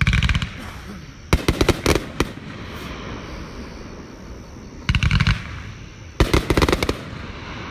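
Fireworks going off in four quick volleys of rapid, crackling pops. The volleys come at the start, about a second and a half in, about five seconds in, and about six and a half seconds in.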